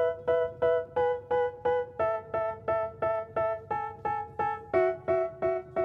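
Background music: a keyboard chord struck about four times a second, moving to a new chord every few seconds.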